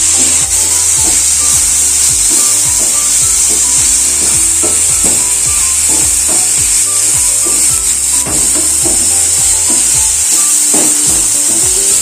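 Sliced onions sizzling in oil in a nonstick frying pan while a wooden spatula stirs and scrapes them in repeated strokes; they are being sautéed until soft.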